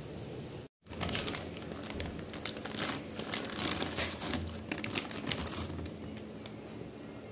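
Plastic snack packet crinkling as veggie fingers are shaken out of it onto a plate, in clusters of quick crackles that are loudest in the middle. It opens with under a second of oil sizzling in a frying pan, then a brief cut.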